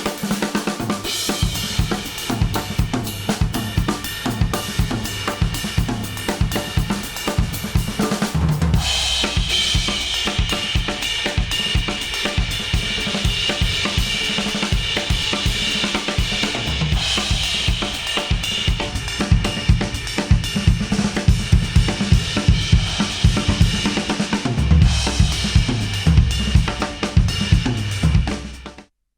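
Instrumental music with a full drum kit beat, played back through in-ear headphones and recorded with an artificial ear simulator. The music thins out briefly about nine seconds in, then picks up again and cuts off suddenly near the end.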